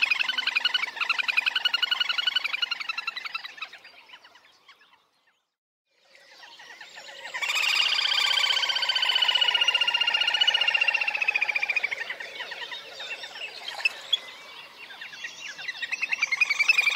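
Little grebe giving its whinnying trill: a fast trill fades out about four seconds in and stops for a second. A new trill then swells into a long, slightly falling whinny that tails off around twelve seconds, and the trill builds up loud again near the end.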